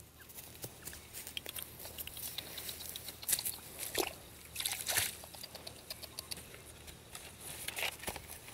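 Irregular rustling and crackling in grass on a pond bank as someone moves and handles things by hand, with a few louder scrapes about three seconds in, around four to five seconds in, and near the end.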